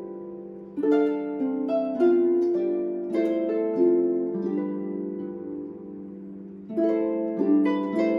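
Celtic harp playing a slow melody: plucked notes and chords left to ring on. About halfway a chord is left to die away, and the melody picks up again near the end.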